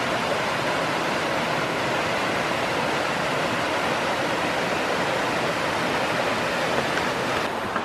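Upper falls of the Little Mashel River: a steady rush of falling water, the river running high with spring snowmelt.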